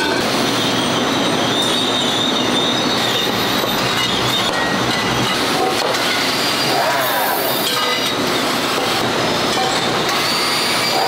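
Steady machinery noise in a frying-pan factory: motors and conveyors running continuously, a dense noise with a thin high whine over it.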